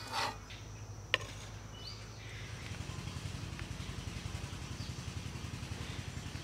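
An engine running nearby with a low, rapidly pulsing drone that builds up about two and a half seconds in and then holds steady. A single sharp click comes about a second in.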